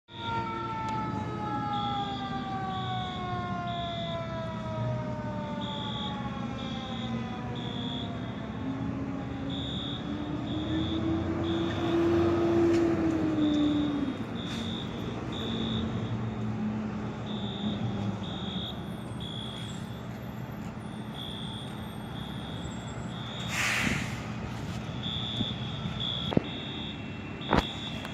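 Fire truck siren winding down in a long falling wail over the first few seconds, then a low tone that swells and falls away again around the middle, over the steady rumble of the fire apparatus.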